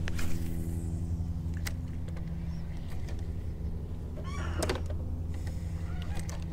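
Bow-mounted electric trolling motor running at low speed, a steady hum. A brief bird call comes about four and a half seconds in, with a few light clicks scattered through.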